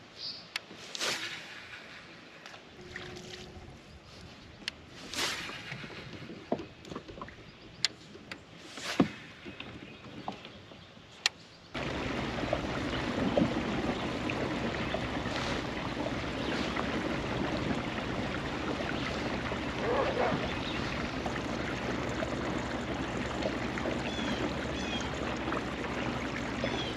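Water lapping and sloshing around a fishing kayak, with scattered short swishes and clicks. About twelve seconds in, a steady rushing noise starts suddenly and carries on.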